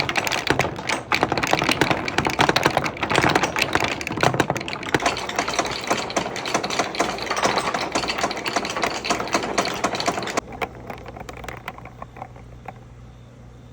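Many balls rolling and clattering down a wooden marble run, a dense, rapid clicking. About ten and a half seconds in it drops away suddenly to a few stray clicks over a steady low hum.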